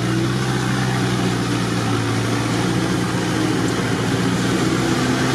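Off-road 4x4's engine running steadily at low speed, heard from inside the cab while driving slowly through mud, with constant road and cab noise underneath.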